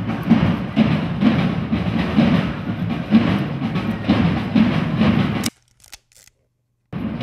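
Marching drum beating a steady rhythm, about one strong stroke a second with lighter strokes between, over crowd noise. It cuts out abruptly about five and a half seconds in and starts again just before the end.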